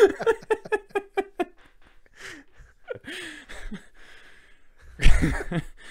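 Men laughing: a quick run of pitched laugh pulses during the first second and a half, then breathy, wheezing laughs and a loud burst of laughter or gasp near the end.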